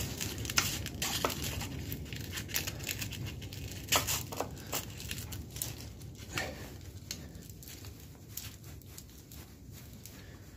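Hand tools clicking and scraping on metal engine parts in scattered sharp, irregular ticks as an ATV engine is taken apart, over a steady low rumble. The clicks are busiest in the first few seconds and thin out toward the end.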